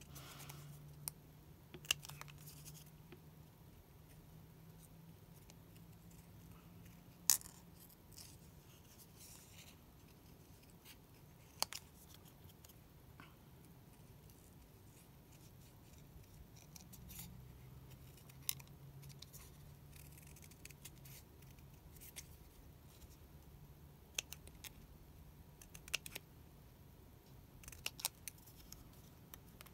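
Small orange-handled snips cutting out a paper image: scattered, irregular sharp snips with pauses between them, over a faint steady low hum.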